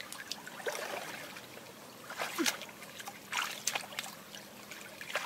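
Water in a shallow stream splashing in several short, separate splashes as a hand works in it, over a faint steady trickle.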